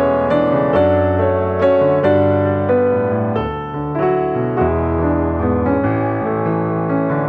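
Background piano music: a gentle melody of notes struck every half second or so over changing chords.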